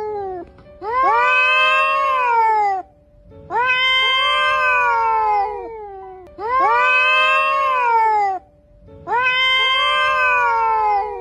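Cats caterwauling in a fight: four long, drawn-out yowls, each rising and then falling in pitch, with short pauses between them.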